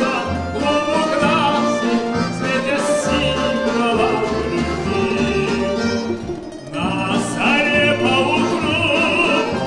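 A man singing with vibrato into a stage microphone, accompanied by an ensemble of stringed instruments. The music drops back briefly about six seconds in, then resumes.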